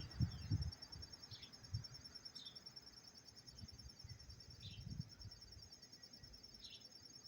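A cricket chirping non-stop: a steady, rapidly pulsed high trill that does not pause. About five short, separate chirps of another kind cut in over it, and a few low thumps come near the start.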